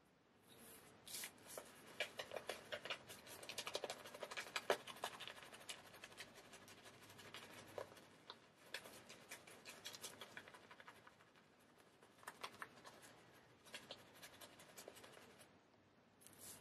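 Shaving brush being worked over a stubbled face, lathering it: soft, irregular scratchy brushing of the bristles through wet lather and whiskers, busiest in the first few seconds.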